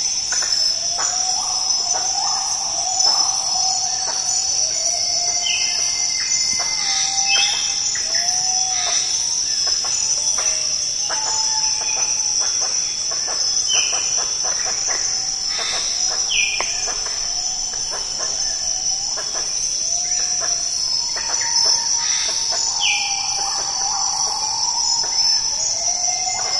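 Rainforest ambience: a steady high-pitched insect drone with many birds calling over it, repeated short curved notes at a middle pitch and brief higher whistled calls scattered throughout.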